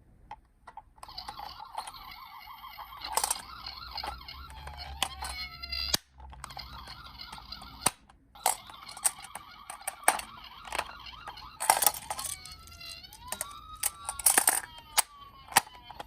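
Electronic sirens of toy ambulance and fire engine minicars: steady siren tones that give way to a rising and falling wail around the middle and again near the end, cutting out briefly twice. Scattered sharp clicks and knocks sound throughout.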